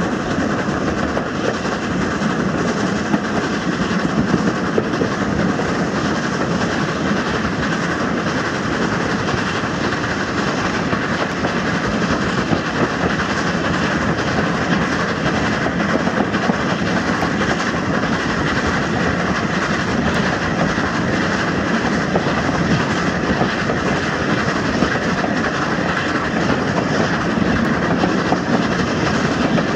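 A train running along the track, with a steady noise of wheels on rails.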